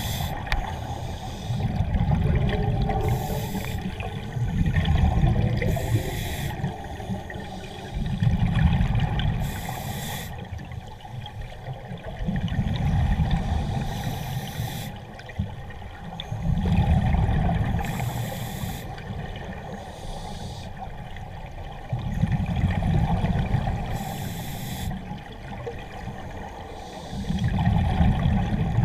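Scuba regulator breathing underwater: a short hiss of inhalation about every four to five seconds, each followed by the low rumble of exhaled bubbles.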